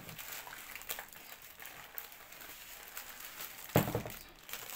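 Black plastic bag crinkling as it is pulled off a tape-wrapped cardboard parcel, with a loud thump near the end.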